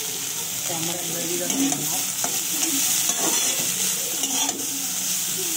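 Shredded cabbage, carrot and capsicum sizzling in hot oil in a steel wok, with a steady hiss, while a metal spatula scrapes against the pan and tosses them.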